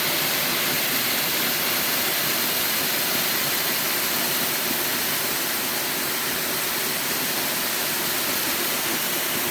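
Waterfall on a mountain valley stream, water falling and splashing in a steady, unbroken rush.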